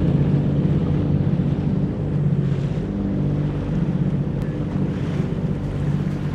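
Jet ski engine running at speed, with water rushing past the hull and wind buffeting the microphone.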